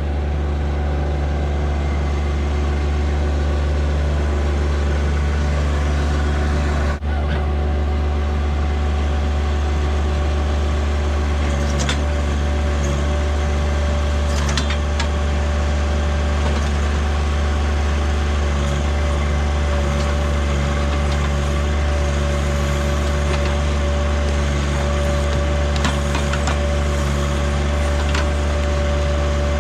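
John Deere tractor-backhoe's engine running steadily under digging work, with a steady whine that comes in about eleven seconds in and a few faint knocks.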